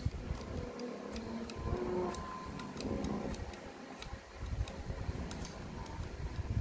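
Irregular light clicks and ticks from the plastic piano-key levers of a Sony CFS-1110S boombox's cassette mechanism being pressed and worked by hand.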